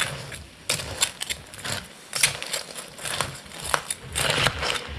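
A metal spatula stirring a wok full of cooked crabs: irregular scraping and clattering of crab shells against the aluminium pan, several knocks a second.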